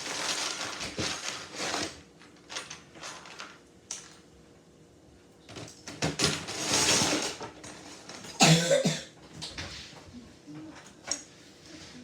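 Loose plastic Lego bricks rummaged and clicked together during building, in several rustling clattering bursts with small clicks between. A short cough-like vocal sound comes at about eight and a half seconds in.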